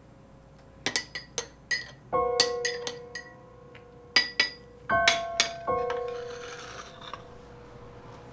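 Metal teaspoon stirring in a ceramic cup, clinking sharply against the sides many times in uneven clusters and stopping about six seconds in. A few soft, held music notes sound under the clinks.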